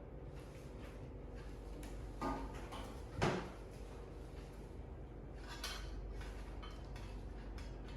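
A few brief knocks and rustles of objects being handled, the loudest a short thump about three seconds in.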